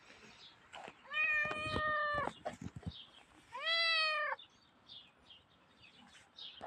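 Small grey dilute calico kitten meowing twice: a long, level meow about a second in, then a shorter meow that rises and falls in pitch about three and a half seconds in.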